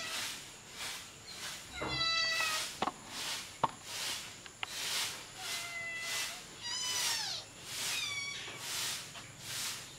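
Kittens mewing: about four high meows, most falling in pitch, one long and level in the middle. Between them come three sharp clicks, and a soft hiss pulses about twice a second behind.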